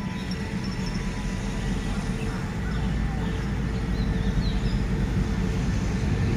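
Diesel-electric locomotive of an approaching train, a CRRC Qishuyan (QSY) unit, its engine a low drone growing gradually louder. A few faint bird chirps sound above it.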